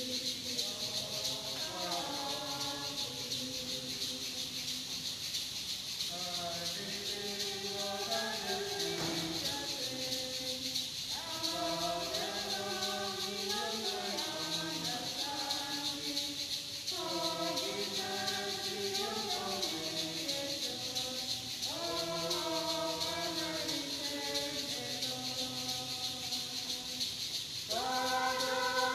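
A choir singing a church hymn in phrases of a few seconds, with a shaker keeping a steady rattle underneath. It is sung during the preparation of the gifts at Mass.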